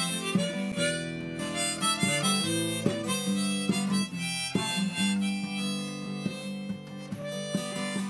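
Background music: a held melody line over short plucked notes.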